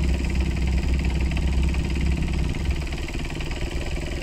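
Engines of off-road vehicles idling, heard from inside a 4x4's cab. A steady low rumble that eases slightly about two and a half seconds in.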